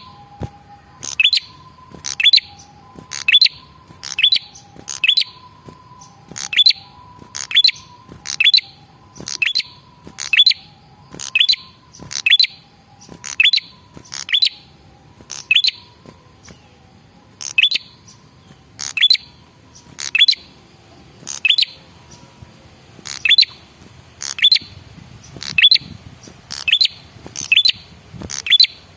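Male prenjak kepala merah calling: a sharp, short chirp repeated evenly about once a second, with a faint pair of steady, lower whistled tones beneath it for much of the time. The call is the male's territorial call, played as a lure to make other prenjak answer.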